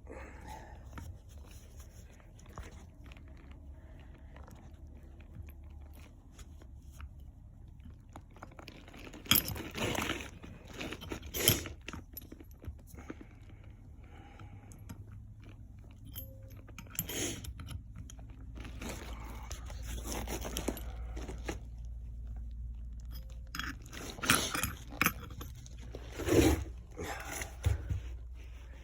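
Hand threading tap cutting threads into drilled holes in a motorcycle clutch basket: scraping and crunching metal, with several sharp metallic clanks from tools being handled.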